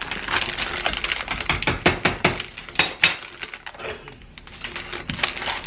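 Plastic deli-meat and cheese packaging crinkling and crackling as slices are peeled out by hand, in quick, irregular clicks.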